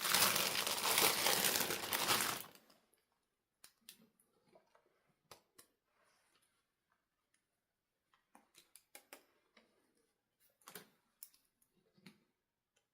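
Crinkling of plastic packaging from a doll unboxing for about the first two and a half seconds, then scattered light clicks and taps as the pieces are handled.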